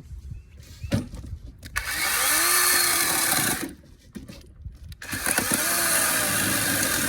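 DeWalt 20V MAX XR 12-inch cordless chainsaw (DCCS620B) running its chain in two bursts. It runs for about two seconds, stops, then starts again about five seconds in and keeps going. Its electric motor gives a high whine over the chain noise.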